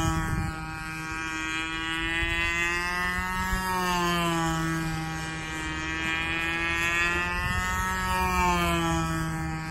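Radio-controlled model airplane's motor and propeller droning steadily in flight, its pitch rising and then dropping twice as it passes by.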